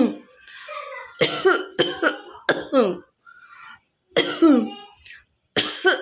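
A woman coughing hard again and again on purpose: a quick run of about five coughs, each dropping in pitch, a short pause, then two more single coughs.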